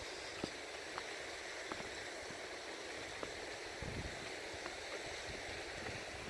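Steady rush of a mountain stream, with a brief gust of wind buffeting the microphone about four seconds in.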